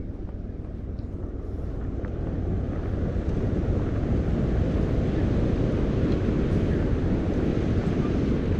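Wind buffeting the microphone in a steady low rumble, growing louder about two to three seconds in.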